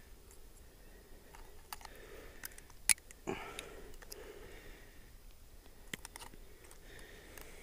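A few faint, sharp clicks and ticks, the loudest about three seconds in, as a knife blade works at a northern pike's mouth and gills, with a sniff or breath now and then.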